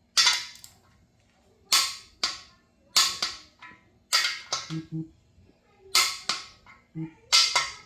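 Torque wrench working the main-cap stud nuts on an LS engine block: sharp ratcheting clicks in repeated strokes, about one or two a second, as the nuts are drawn down toward 60 ft-lb.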